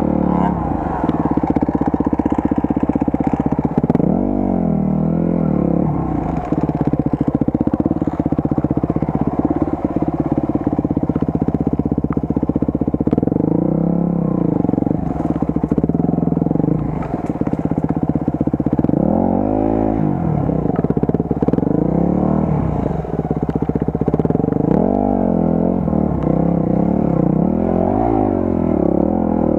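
Enduro motorcycle engine revving up and down as it is ridden over rough ground, its pitch climbing and falling again every few seconds.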